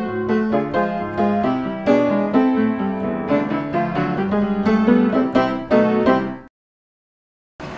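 Background music: a quick run of piano notes that stops abruptly about six and a half seconds in, followed by a second of dead silence.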